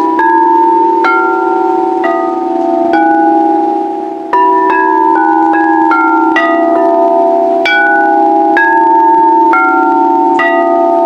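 Singing bowls struck one after another, about once a second. Each strike gives a bright ping, and the lower tones ring on and overlap in a steady wavering hum.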